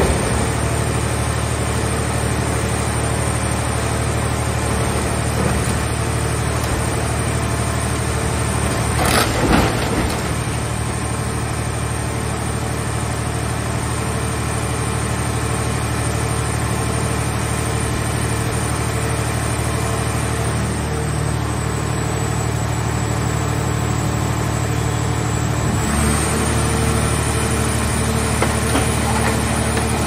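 Mobile car shell baler's hydraulic power unit running steadily as the press closes on a scrapped car body. There is a short loud crunch of metal about nine seconds in, and a few seconds before the end the machine's note shifts as the press keeps squeezing.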